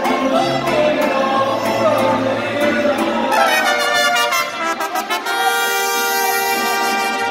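Mariachi band playing live: trumpets and violins over strummed guitars and a plucked bass line. A falling run comes about halfway through, and a long held chord near the end.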